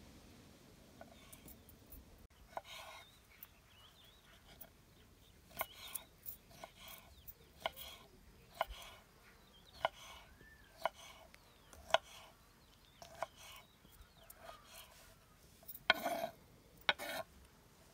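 Kitchen knife dicing pickles on a wooden cutting board: irregular sharp knocks of the blade on the board, about one or two a second, with a quick flurry near the end.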